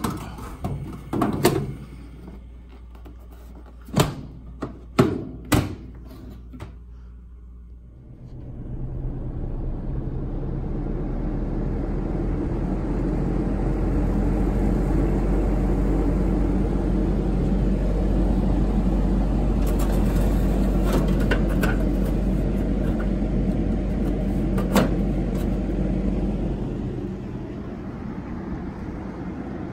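Vintage Coroaire WM-90 gas furnace: a few sharp knocks in the first six seconds, then about eight seconds in the blower fan comes on, building over a few seconds to a steady rush of air with a low hum, easing a little near the end. The blower starting after the burners have been lit is the normal sign of the heat exchanger warming up enough to trip the fan control.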